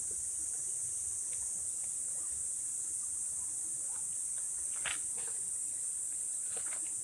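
Steady, high-pitched chorus of insects such as crickets, with a few faint rustles and clicks, the sharpest about five seconds in.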